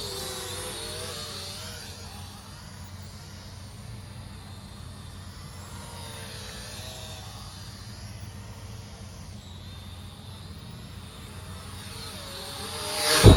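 Small electric motors and twin propellers of a foam toy airplane drone in flight, a thin whine that wavers up and down in pitch over a steady low rumble. Near the end the sound swells loud and then cuts off suddenly.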